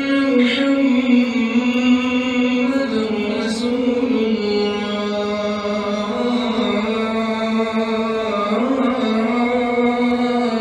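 A single man's voice in religious chanting, holding long notes that bend and ornament slowly in pitch, with no instruments.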